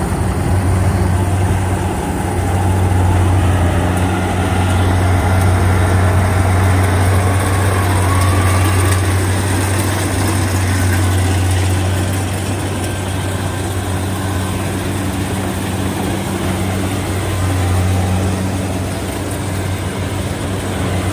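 Kubota combine harvester running steadily while it cuts and threshes rice: a constant diesel engine drone with a strong low hum and the noise of the working machinery.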